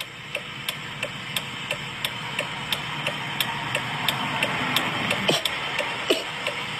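A car's indicator relay ticking steadily, about three clicks a second, over the hum of tyres and road noise inside the cabin, which slowly grows louder.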